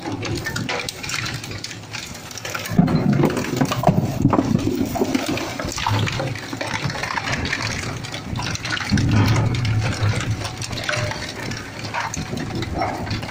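Twin-shaft plastic shredder with a 20 HP motor running, its cutter discs crushing and tearing polyethylene jugs. There are loud bouts of crunching about three seconds in and again around nine seconds.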